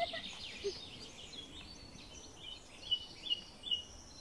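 Birds chirping over faint outdoor background noise: a series of short, high chirps, with three louder ones close together near the end.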